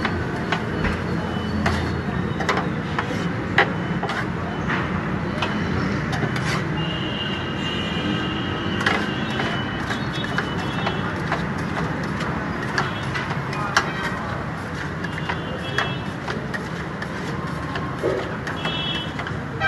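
Metal scraper chopping and scraping chicken on a steel griddle: quick, irregular metallic clacks over steady background noise.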